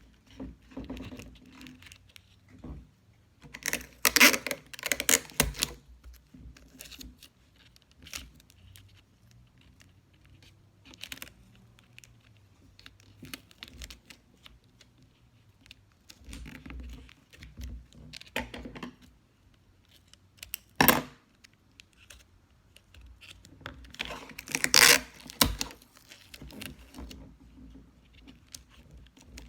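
Paper and tape being handled while a paper fidget toy is made: scattered small clicks and rustles, with louder bursts of rustling about four seconds in and again near the end, and a sharp click about two-thirds of the way through.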